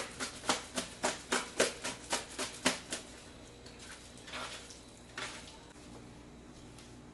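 A plastic bag of seasoned chicken pieces shaken by hand, giving a fast rhythmic crackle about four to five times a second that stops about three seconds in, followed by a few softer rustles.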